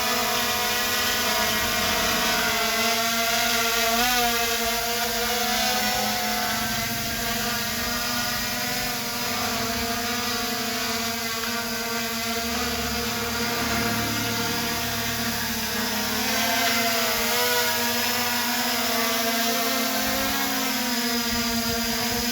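MJX B20 quadcopter drone's motors and propellers buzzing steadily in flight, the pitch wavering now and then as it holds itself against strong gusts. Strong wind rumbles on the microphone.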